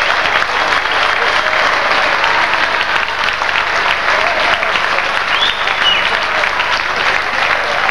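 Arena crowd applauding a boxer at the end of a bout: steady clapping with voices mixed in, and a short high tone about five and a half seconds in.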